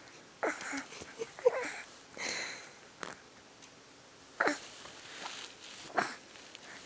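Hiccups: about half a dozen short, sharp gulps at uneven gaps of roughly a second, the loudest about one and a half seconds in.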